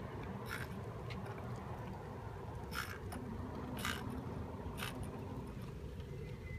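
Steady low outdoor background rumble, broken by four short, sharp scratchy sounds spaced about a second apart.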